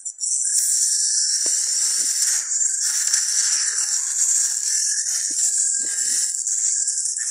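Movie-trailer soundtrack played from a screen and re-recorded by a phone: a loud steady hiss with faint crackles and knocks underneath, no clear speech or music.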